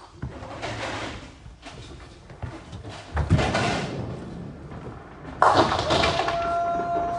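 Nine-pin bowling balls rolling down the lanes and crashing into the pins: two loud strikes on the pins, about three seconds in and at about five and a half seconds, the second the loudest. A steady held tone follows it until near the end.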